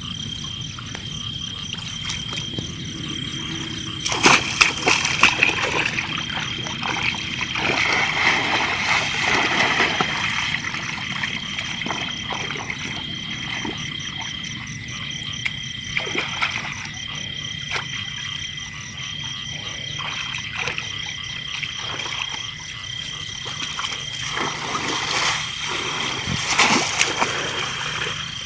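Splashing and sloshing in shallow water as bamboo plunge-basket fish traps are pushed down into a flooded field and worked by hand, in several bursts, the loudest about four seconds in and again near the end. A steady high-pitched calling continues underneath.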